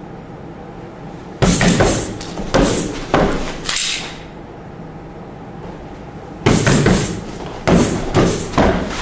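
Two quick flurries of sharp impacts, about five or six blows each, with a short echo: hand and pistol-muzzle strikes landing on a striking pad held against a training partner's body.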